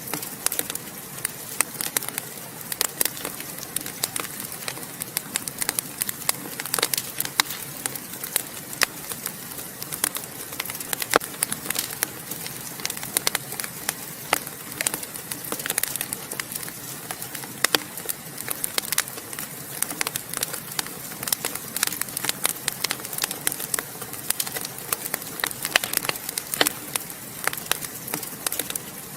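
Wood fire crackling in a fireplace: irregular sharp pops and snaps over a steady soft hiss.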